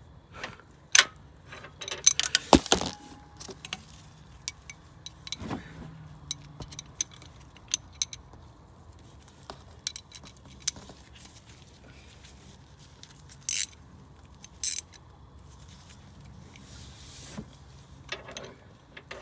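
Hand tools working on a serpentine belt tensioner: scattered metallic clicks and clinks, a dense run of knocks about two to three seconds in, and two short sharp rasps a little past the middle.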